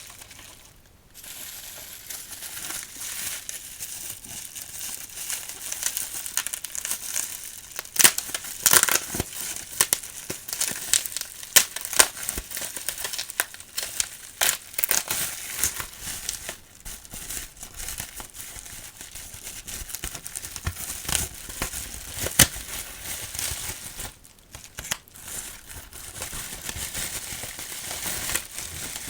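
Plastic packaging crinkling as it is handled and unwrapped, with many sharp crackles and clicks. It is quiet for about the first second, then busy throughout.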